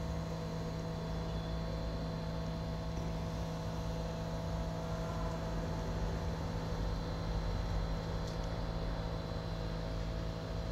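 A steady, machine-like hum with a few held tones over a low rumble and faint hiss.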